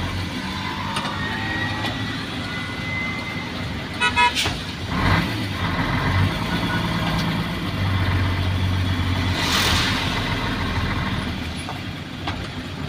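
Isuzu Giga truck's 6WA1 inline-six diesel engine running on the road, heard from inside the cab. A short horn toot comes about four seconds in, and a brief rushing swell of noise about ten seconds in.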